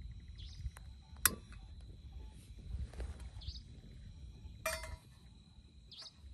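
Portable butane canister stove being lit. A single sharp click comes about a second in, and a few seconds later a steel saucepan clanks down onto the burner with a brief metallic ring. A low rumble runs underneath until near the end.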